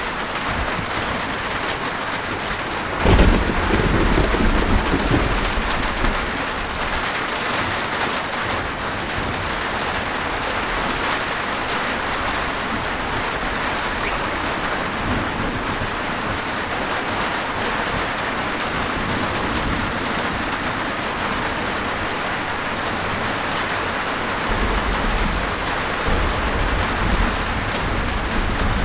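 Steady rain falling, with a sudden thunderclap about three seconds in that rumbles on for a few seconds. Low rolling thunder returns near the end.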